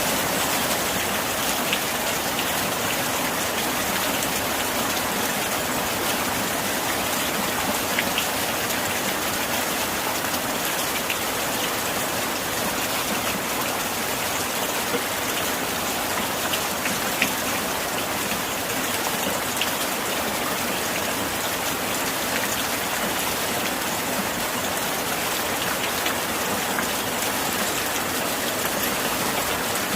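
Steady rain pattering against window glass: an even hiss of rainfall with a few sharper individual drop ticks standing out now and then.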